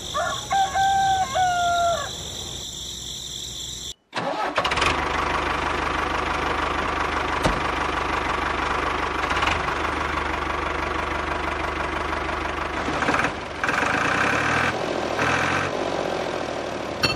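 A rooster crows once at the start. After a short break about four seconds in, an engine starts and keeps running steadily.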